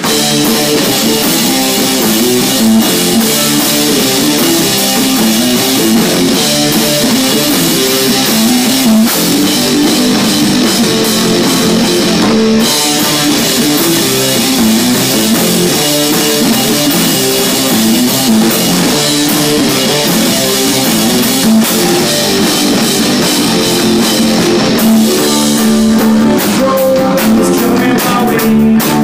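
Rock band playing loud, continuous music at a sound check, with a drum kit and guitar.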